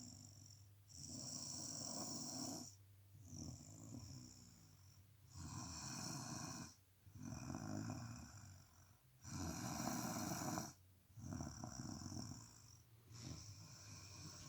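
A person snoring in her sleep, louder and softer breaths alternating, with a loud snore about every four seconds.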